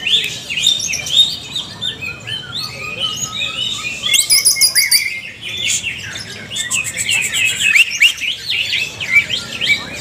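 Several caged greater green leafbirds (cucak ijo) singing together in a dense, overlapping chorus of quick chirps, whistles and sharp rising notes. A fast, high trill comes in about four seconds in, and a run of rapid ticking notes follows a few seconds later.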